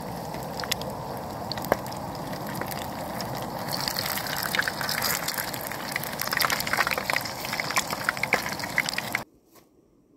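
Eggs frying in shallow oil in an aluminium mess tin on a gas stove: a steady sizzle with crackles and spits that grow thicker from about four seconds in. It cuts off suddenly near the end.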